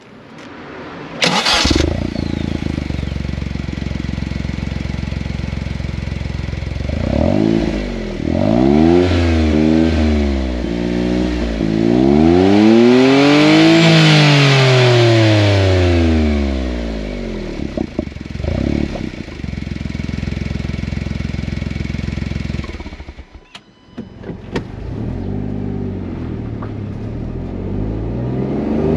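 Honda S660's small turbocharged three-cylinder engine and exhaust, started about a second in and idling. It is revved in a few quick blips, then in one long rise and fall midway, before settling back to idle. Near three-quarters through the engine note drops away briefly, then returns and begins to climb again near the end.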